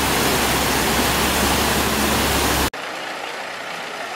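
Fast river water rushing over rocks with a bus engine running low beneath it. The sound cuts off abruptly a little over halfway through, giving way to a quieter truck engine idling.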